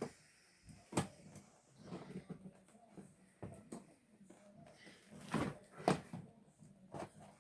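Toy packaging being handled and pulled at while someone tries to get the toy out: a scattering of sharp clicks and knocks over a faint rustle.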